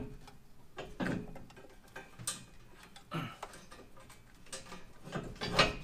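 Scattered metal clinks and taps of parts and tools being handled in a car's engine bay while refitting exhaust headers, about eight separate knocks, the loudest near the end.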